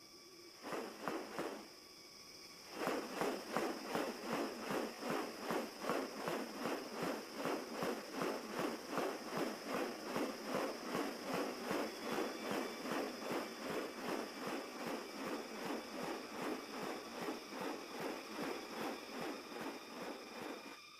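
A steady run of rasping pulses, about three a second, over a continuous high insect drone. A short burst of pulses comes about a second in, then after a pause they resume about three seconds in and keep an even rhythm.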